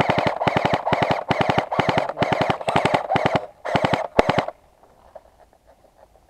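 Airsoft electric gun firing full-auto in several short bursts, its gearbox cycling in a rapid, even rattle; the firing stops about halfway through.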